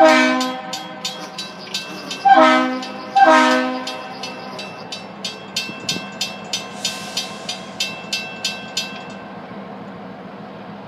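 Diesel switcher locomotive sounding its horn for a grade crossing: a chord blast at the start, then two more short blasts about two and three seconds in. Under the horn the crossing-signal bell rings in even strokes, about three a second, and stops near the end.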